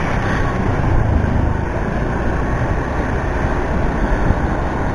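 Motorcycle riding at low speed: steady engine and wind noise on the action camera's microphone.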